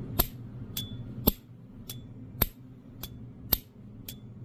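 S.T. Dupont Line 2 (New Line) lighter lid flicked open and snapped shut over and over: sharp metal clicks about every half second, every other one with a short high ring. This is the lighter's signature 'cling' before restoration, which sounds poor for a New Line.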